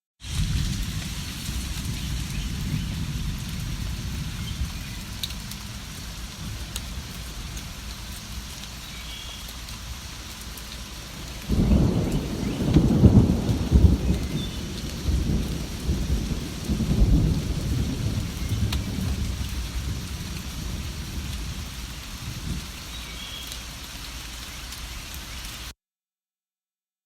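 Steady rain falling, with a long rolling rumble of thunder that starts suddenly about halfway through and fades over several seconds. The sound cuts out abruptly near the end.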